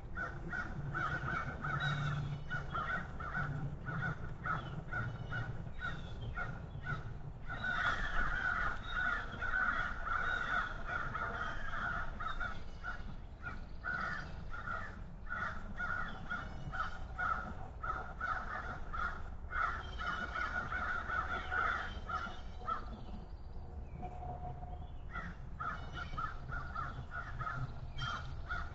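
Harsh calls from a corvid, such as a blue jay or crow, repeated in quick series, several a second, with a short lull about three-quarters of the way through.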